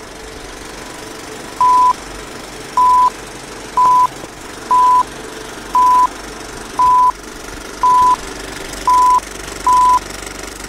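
Film-leader countdown sound effect: nine short, identical high beeps about one a second, over the steady rattle and hiss of a running film projector.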